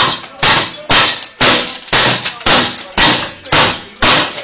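Hammer blows struck hard and evenly, about two a second, nine in all: a locksmith forcing entry into a house.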